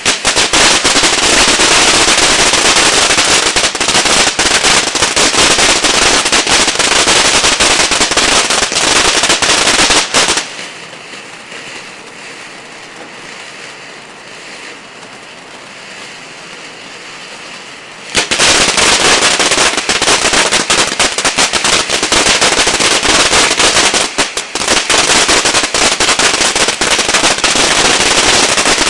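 Pink Diamonds ground fountain firework crackling rapidly and loudly. About ten seconds in it dies down to a quieter hiss of sparks, then bursts back into loud crackling about eight seconds later.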